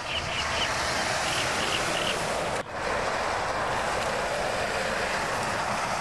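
Steady rain, an even hiss, with a momentary break about two and a half seconds in.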